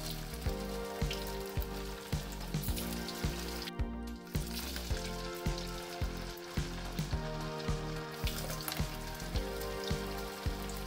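Sabudana (sago) vadas deep-frying in hot oil in a kadai, a steady sizzle of bubbling oil. Background music with a steady beat plays over it.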